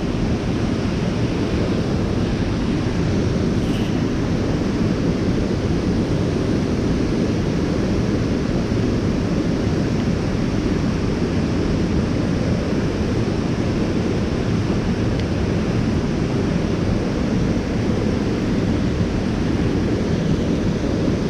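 Steady rushing of a rain-swollen creek running high and fast in spate.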